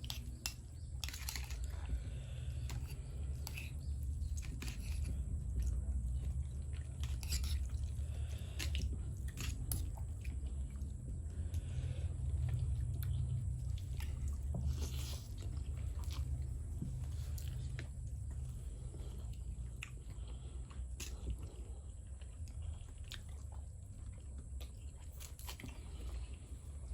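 A person chewing and eating mie goreng fried noodles close to the microphone, with scattered short crunches and mouth clicks over a steady low hum.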